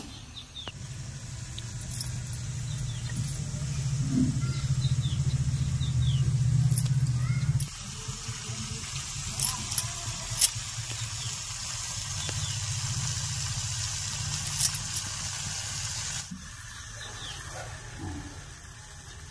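A low rumble that swells for several seconds and cuts off suddenly, then returns more faintly under a hiss. A few sharp clicks come through, from peeled taro being handled over a steel plate.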